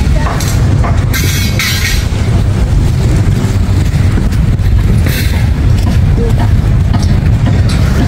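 Wind buffeting the microphone: a steady, loud low rumble, with a few short rustles on top.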